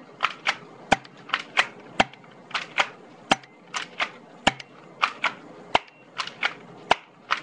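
Airsoft M1911 pistol being fired again and again. It makes sharp repeating snaps in a steady pattern: a quick pair of clicks, then a stronger snap, about every second and a quarter.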